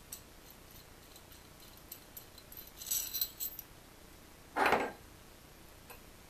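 Nesting metal screwdrivers being taken apart by hand: faint clicks, then a cluster of light metallic clinks with a brief ring about three seconds in. A short, duller noise follows a little after halfway.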